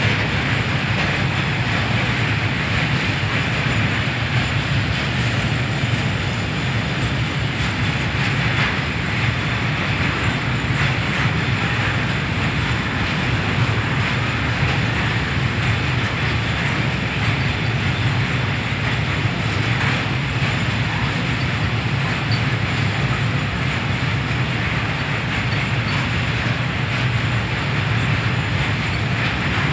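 Freight train of flat wagons loaded with steel coils rolling steadily past, a continuous rolling noise of wheels on rail with faint ticks from the rail joints.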